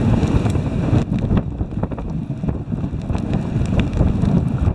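Wind rumbling on the microphone of a moving dog sled, with scattered light clicks.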